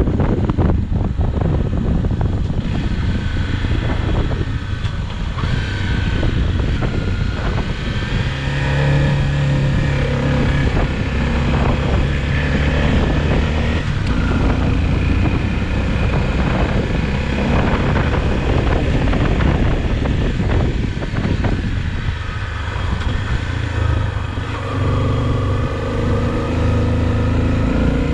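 Honda XRE 300's single-cylinder engine running on the move. Its note rises and falls with throttle and gear changes, over a steady low rumble of wind on the microphone.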